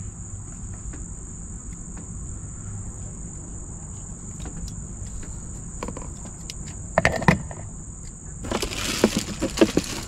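Steady high-pitched chirring of insects throughout. About seven seconds in there are a few sharp clicks of packaging being handled, then plastic wrapping crinkling near the end.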